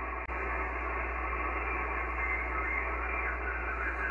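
Steady hiss of shortwave band noise from an Icom IC-7300 transceiver's speaker in sideband receive, with its top end cut off by the receive filter, plus a faint click about a quarter second in. The receiver is open after a call, with no station answering clearly.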